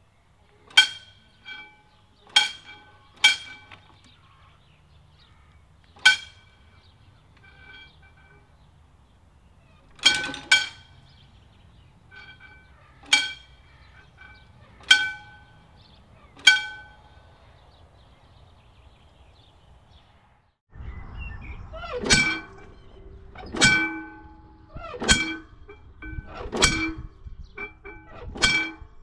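Warning bell of an old mechanical railway level crossing ringing single strikes, one every second and a half to three seconds, each with a short metallic ring, while the barriers are lowered. After about 20 seconds the strikes are louder and fuller over a steady low rumble.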